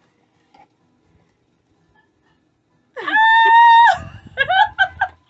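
After a near-silent pause, a woman lets out a high-pitched squeal of delight about three seconds in, held for about a second, then a few short excited laughing squeals at the sight of the gift.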